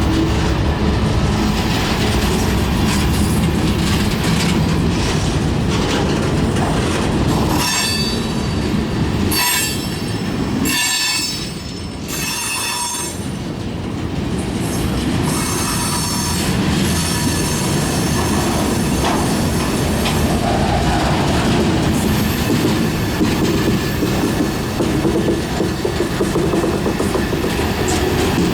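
CSX freight train's cars rolling steadily past, with wheels clacking over the rail joints and wheels squealing for a few seconds about a third of the way through.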